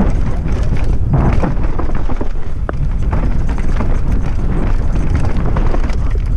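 Downhill mountain bike riding fast over a rocky dirt trail: tyres on loose stones with a constant stream of rattles and knocks from the bike, over heavy wind rumble on the helmet camera's microphone.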